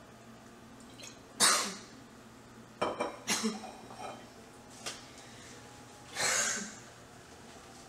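A woman coughing after a swig straight from a bottle of liquor: a hard cough about a second and a half in, a few more around three seconds, and a longer cough near the end.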